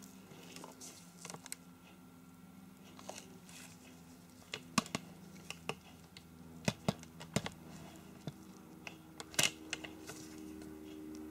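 Quiet room with a low steady hum and scattered short, sharp clicks and ticks, most of them in the second half; the hum gets a little louder near the end.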